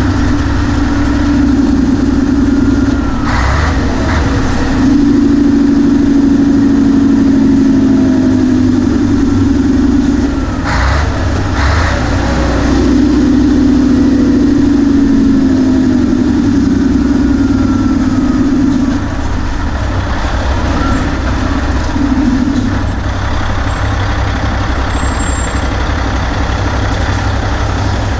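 Nissan Diesel KG48U truck crane's 12.5-litre turbocharged intercooled PF6TB diesel engine pulling on the road through its manual gearbox. The engine note breaks off twice, about three and eleven seconds in, as gears are changed, and is a little quieter from about nineteen seconds in.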